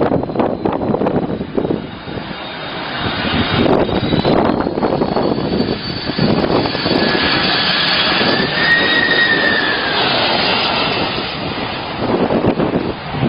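Jet engines of an airliner on low landing approach, growing loud as it passes close overhead. A high whine bends up and then down as it goes by, and the noise eases off near the end.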